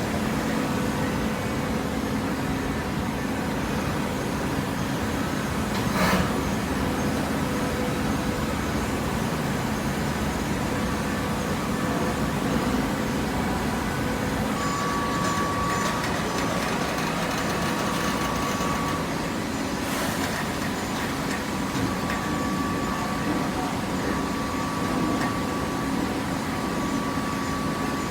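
Machinery running steadily with a low hum. A thin steady whine sets in about halfway, and there are two sharp knocks, about six seconds in and again about twenty seconds in.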